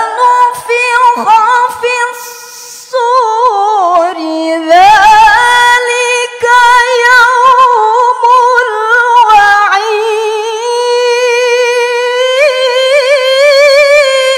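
A woman reciting the Quran in the melodic tilawah style: one long, unbroken phrase held high in the voice with fast ornamental runs and vibrato, climbing a little toward the end before it fades.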